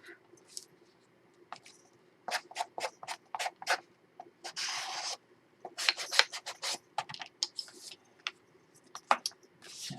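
Short, irregular rubbing and scraping strokes along the paper-covered edges of a chipboard album cover as they are being finished, with one longer stroke just before the middle.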